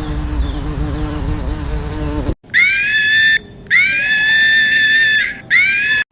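A steady, wavering buzz, then, after an abrupt cut, three loud, high-pitched, drawn-out animal calls, each rising at the start and then held.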